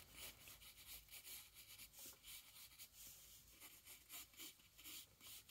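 Faint scratching of a graphite pencil on paper, in light repeated sketching strokes.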